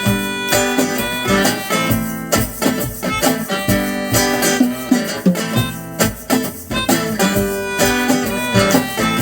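Live acoustic band playing an instrumental passage between verses: strummed acoustic guitar with other instruments, no singing.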